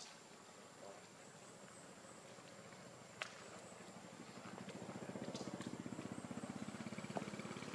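A small engine running faintly in the background with a fast, even putter that grows louder about four seconds in, with two sharp clicks.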